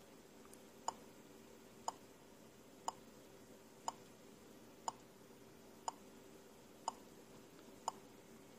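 Small speaker on an Arduino UNO model-train fast clock giving faint, short clicks once a second, eight in all, like the WWV time-signal seconds ticks. Each click marks one real second of the running clock.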